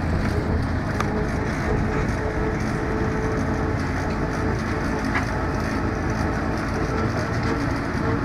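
Tourist road train under way, its engine and the open trailer cars running with a steady rumble and rattle, heard from on board; a couple of small knocks about one and five seconds in.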